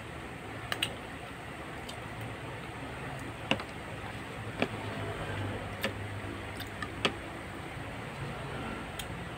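Sharp, scattered clicks and taps of a fork against a foam takeout container while eating, about half a dozen over a steady background hum.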